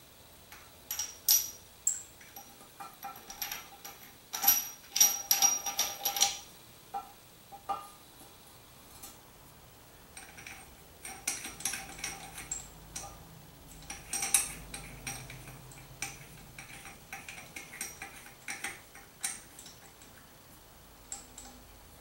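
Metal faucet valve parts clicking and clinking against a porcelain bidet as a valve is seated in its deck hole and hand-tightened from underneath. The clicks and small rattles come irregularly, in two busy spells.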